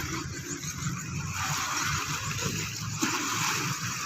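Boat engine running steadily on the river, with the wash of water.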